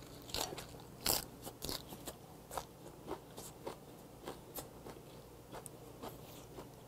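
Close-up chewing of a crisp napa cabbage leaf wrapped around gwamegi: a run of crunches about two a second, loudest about a second in and fainter toward the end.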